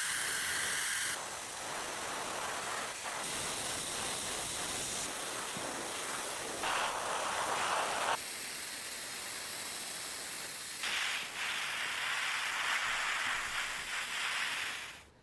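Steady hissing of a compressed-air spray, in several stretches that change in pitch and strength every second or few.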